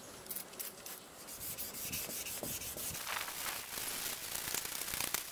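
Hand wet-sanding of a plastic car headlight lens with 600-grit sandpaper: a steady rasping rub in horizontal strokes. It gets louder and steadier about two seconds in.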